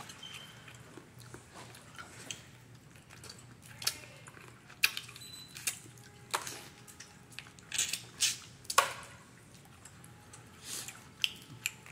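Boiled crawfish being cracked, peeled and eaten by hand: scattered sharp shell cracks and wet sucking and chewing, the loudest near the middle.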